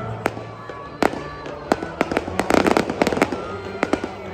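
Fireworks bursting: a string of sharp bangs, with a dense run of crackling shells near the middle, over steady background music.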